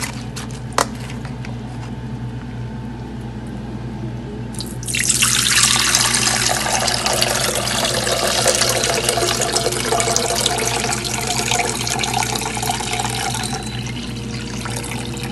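Pickling brine draining off soaked mustard greens, poured from a tilted plastic basin into a stainless steel bowl: a light knock just under a second in, then a steady splashing stream starts suddenly about five seconds in and eases off near the end.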